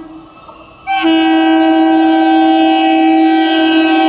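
Horn of an approaching electric local train (EMU): a blast ends right at the start, and after a quieter gap of about a second a second long, steady, loud blast begins and holds.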